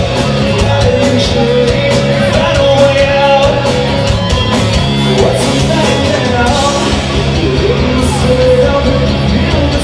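Rock band playing a song live, with a singer's voice over the band.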